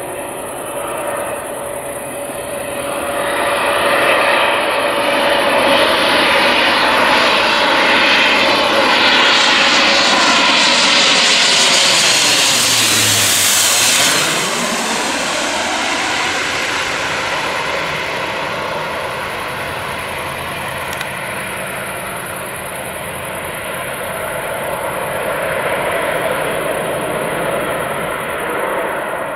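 Twin-engine airliner on final approach flying low overhead: the engine roar builds, is loudest as the aircraft passes directly above about halfway through, then drops off and rumbles on at a lower level as it heads to the runway.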